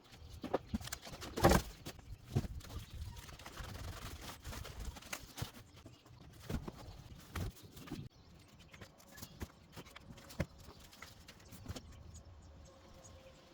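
Irregular knocks and clicks, the loudest about a second and a half in, over a low rumble that fades about halfway through.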